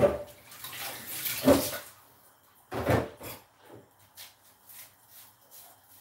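Food-prep handling at a kitchen counter: a rustling clatter at the yellow plastic bowl lasting about two seconds, another shorter one about three seconds in, then faint light clicks as a red onion is peeled with a knife.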